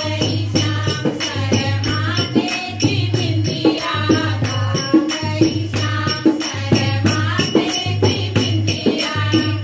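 Women singing a Pahadi devotional song (bhajan) together, over a quick, steady beat of hand claps and dholak drum with jingling percussion.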